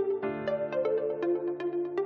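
Instrumental background music: held chords with short notes struck at a steady pulse of about four a second.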